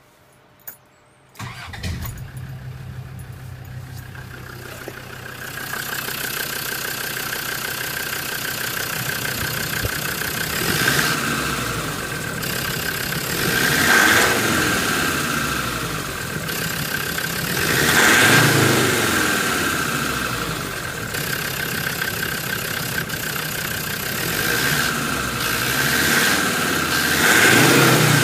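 Land Rover Defender TD5 five-cylinder turbo diesel engine cranking and firing up about a second and a half in, then idling. It is revved briefly four times, with a steady high whine over the engine note.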